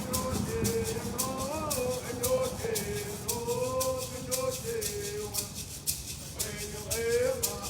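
A hand rattle shaken in a steady beat, about three to four shakes a second, under a single voice singing long, drawn-out notes.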